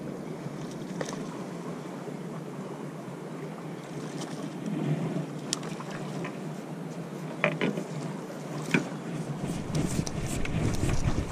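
Sea water lapping and splashing at the rocks as a landing net is worked through the surface, with several short sharp splashes in the second half. A gust of wind rumbles on the microphone near the end.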